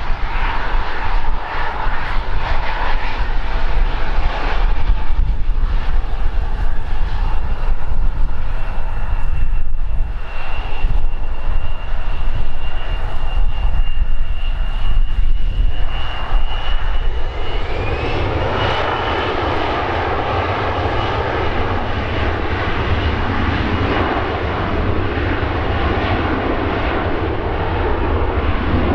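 Embraer 175's two General Electric CF34-8E turbofan engines running at low power with a thin steady whine. About two-thirds of the way through, a rising whine marks the spool-up to takeoff thrust, and the noise then settles into a steady, full engine rush as the takeoff roll begins.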